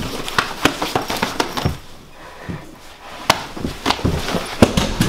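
Two people scuffling at close quarters: an irregular flurry of thumps, slaps and knocks from bodies and hands hitting each other and the furniture, with clothing rustling. The sharpest knock comes near the end.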